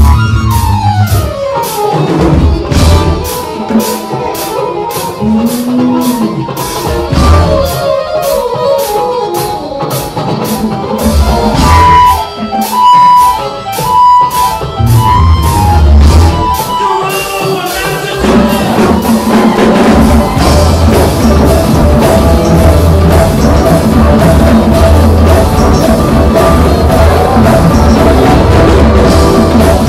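Live band playing with keyboards and drums. The first half is sparser, with an even ticking beat of about three strokes a second, and a little past halfway the full band comes in and plays steadily.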